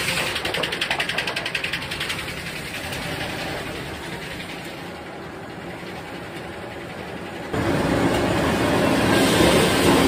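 Sawmill log carriage running along its track while the 700-horsepower, 56-inch circular head saw cuts through the log. A fast rattling clatter in the first two seconds eases to a steadier, quieter run, then the noise jumps suddenly louder about seven and a half seconds in.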